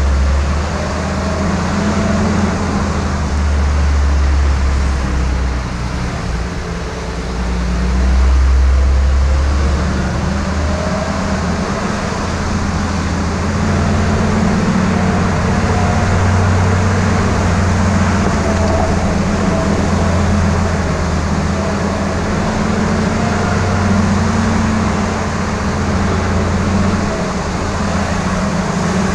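Jeep CJ5's engine running at low speed as the Jeep drives over a gravel canyon track, a steady low rumble with tyre and road noise, briefly louder about eight seconds in.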